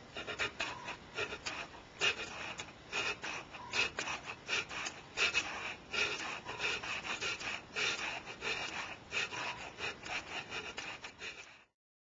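Hand scraping strokes on a workpiece, irregular, about two to three a second, cutting off abruptly near the end.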